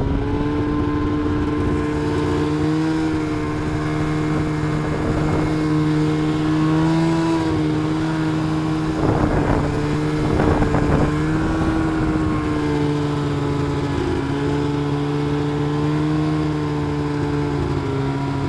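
A vehicle engine running at a steady speed while driving, a constant hum whose pitch drifts only slightly, with a couple of brief rattling bumps about halfway through.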